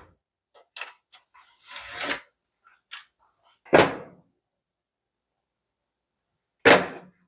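Hard objects being set down on a gas range's cooktop. A short clatter comes about two seconds in, then two loud clunks about four and seven seconds in as a torpedo level is laid on the cooktop and moved across it.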